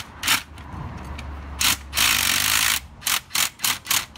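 Cordless impact wrench running on the centre nut of a Honda Spacy's rear variator to open it for cleaning and greasing. A short burst comes first, then a longer run just under a second long about two seconds in, then quick trigger blips about four a second near the end.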